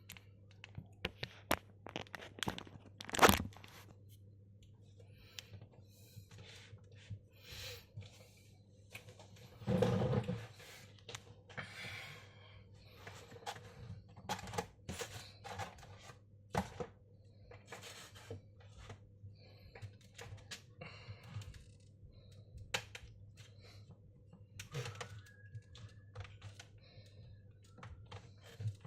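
Hands handling objects at a desk: irregular clicks, taps and light knocks. A sharp loud knock comes about three seconds in, and a heavier thud with a rustle about ten seconds in. A faint steady low hum runs underneath.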